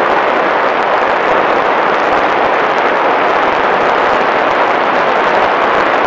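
Loud, steady rush of airflow and motor-propeller noise from a small fixed-wing UAV in flight, picked up by its onboard camera's microphone.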